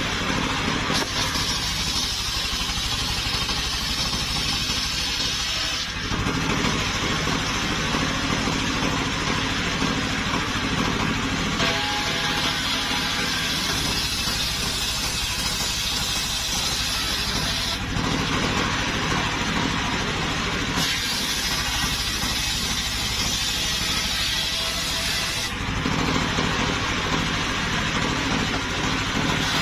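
Engine-driven portable circular sawmill ripping a log into boards: the engine drones steadily, and a bright rasping hiss of the big blade cutting through the wood comes in three long passes of several seconds each, with the blade running free in between.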